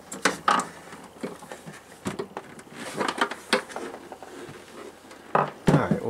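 Plastic housing of a Hunter 32500 evaporative humidifier being handled and fitted back together: a string of irregular clicks, knocks and rattles, louder near the end.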